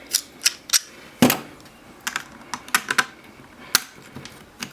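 Irregular small clicks and taps of hard plastic GoPro mounting parts being handled and fitted together, the loudest a little over a second in.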